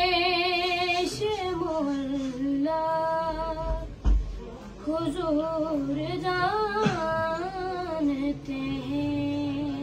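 A boy's voice singing a devotional manqabat unaccompanied, holding long notes with a wavering vibrato and sliding between pitches in ornamented phrases. A single low thump about four seconds in.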